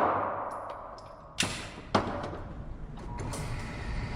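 Two sharp shots from a 9mm pistol, about half a second apart, muffled and some distance from the microphone, with a few fainter clicks. They come as a loud noise from just before fades away.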